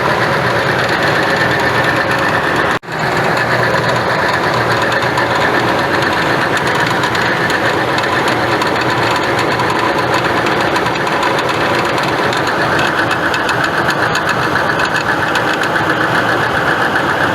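2006 Nissan Frontier engine running steadily in gear with a small knocking noise. The mechanic suspects a worn accessory-belt tensioner. The sound dips briefly about three seconds in.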